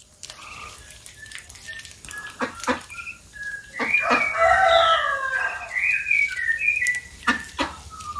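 Domestic ducks calling: short quacks and chatter, with a louder run of calls about four seconds in. A few sharp knocks sound among the calls.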